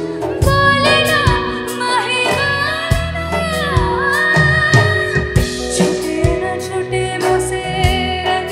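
Female vocalist singing a Hindi film song live through a microphone and PA, holding long notes that slide in pitch, over a band with a drum kit.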